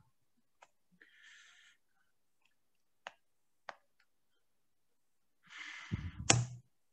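A few sparse computer mouse clicks, single and sharp, spread through the quiet. There is a short breathy hiss about a second in, and near the end a louder rush of breath-like noise with a sharp click, the loudest sound here.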